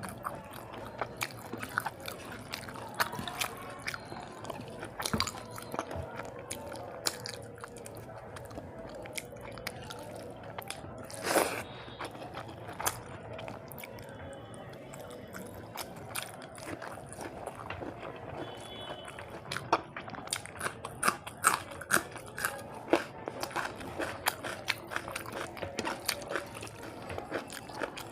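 A person chewing and eating rice and fish up close, with many short wet clicks and smacks of the mouth, and one louder noise about eleven seconds in.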